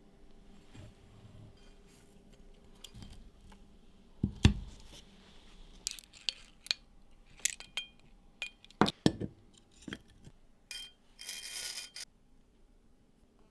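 Scattered light clinks and taps of a steel knife blank, ground from an old file, and small tools handled on a workbench, with one heavier knock about four and a half seconds in. A short scraping hiss comes near the end.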